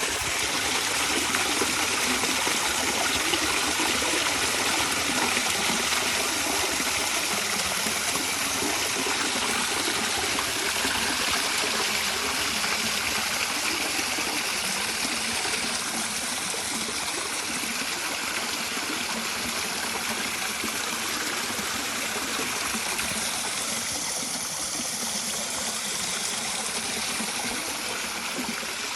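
River water flowing, a steady, even sound of running water.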